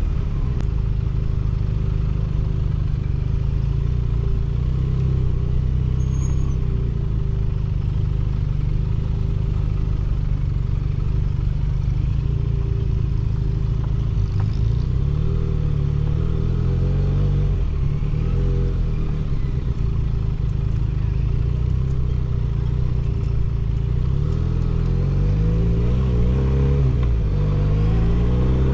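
Benelli 302S motorcycle's 300 cc parallel-twin engine and exhaust while riding, running steadily at first, then revving up and down several times in the second half.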